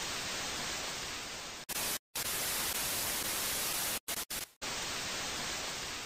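Static hiss used as a glitch sound effect, cutting out abruptly for brief gaps: once just before the two-second mark and a few times around four seconds in.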